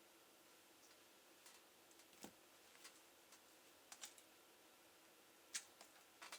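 Faint, irregular small clicks and taps of laptop parts being handled during disassembly, about a dozen scattered through, the sharpest near the end.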